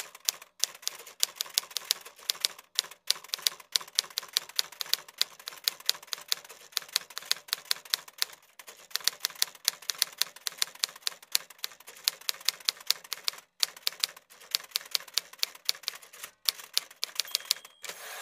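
Typewriter sound effect: a fast, even run of key clacks, several a second, broken by a few short pauses.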